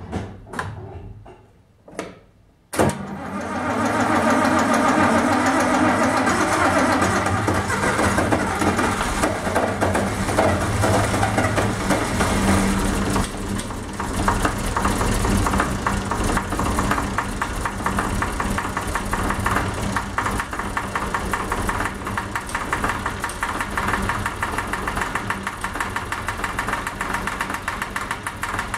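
A few clicks and knocks, then the Massey Ferguson 1135 tractor's diesel engine starts about three seconds in and runs steadily.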